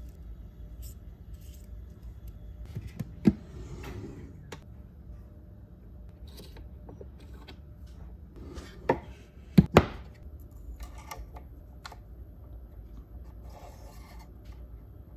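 Small steel parts and tools being handled on a wooden bench while setting up a watchmaker's lathe: faint rustling with a few sharp clicks and knocks, one about three seconds in and the loudest, a close pair, near ten seconds.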